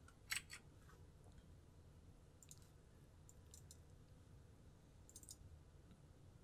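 Faint computer mouse clicks over near-silent room tone: a quick pair of clicks near the start, then a few more scattered clicks.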